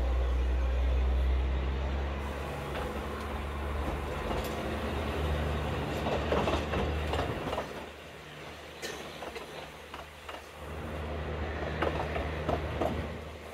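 Narrow-gauge diesel-hauled train running: a low, steady engine drone that fades about halfway through and swells again near the end, with wheel clicks and knocks on the track.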